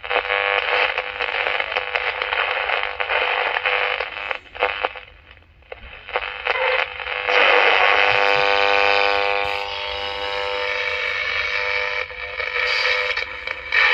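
Small speaker of a 1970s Mikki 2 pocket medium-wave transistor radio playing an AM broadcast through static. It crackles and cuts out as it is tuned, which the owner takes for a tuning capacitor that needs cleaning. About seven seconds in, a station comes through more clearly for a few seconds.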